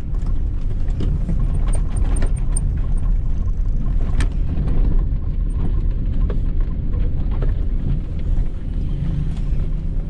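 Nissan car on the move: a steady low rumble of engine and road noise, with a few light clicks.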